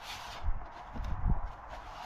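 Handling noise from a plastic-bodied pressure washer being shifted on a car's boot floor: a scraping rustle at the start, then two dull knocks about half a second and just over a second in.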